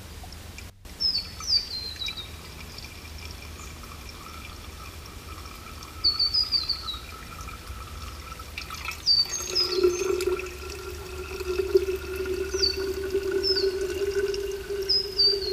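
Creek water scooped with a metal cup and poured into a sock filter of sand, charcoal and gravel, trickling and dripping through into a stainless steel bottle. A bird repeats short descending chirps throughout, and a steady low hum starts about ten seconds in.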